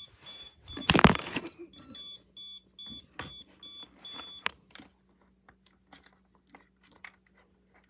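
Hoverboard's low-battery warning: a rapid run of short, high-pitched electronic beeps that stops a little over halfway through. A loud knock about a second in, and small handling clicks after the beeping ends.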